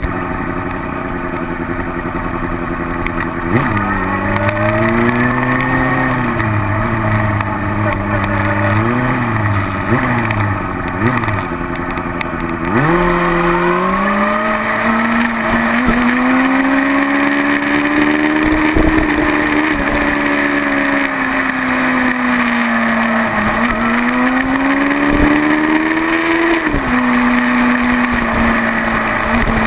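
Motorcycle engine running at freeway speed, its pitch rising and falling with the throttle and gear changes: a sharp dip and climb about thirteen seconds in, then a slow rise and a drop near the end.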